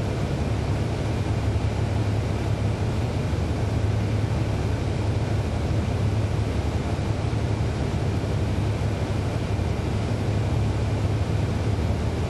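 2011 NABI 40-SFW transit bus, its Cummins ISL9 diesel engine running steadily as heard from on board, a low drone that holds an even pitch and level, with road noise over it.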